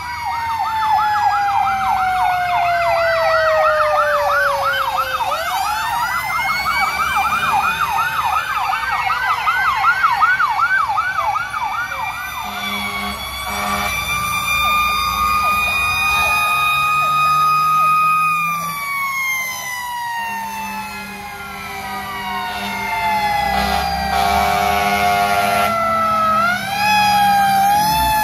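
Several fire truck sirens sounding at once as the trucks pass in a line. A fast up-and-down yelp runs for the first twelve seconds or so, over slower wails and long falls in pitch.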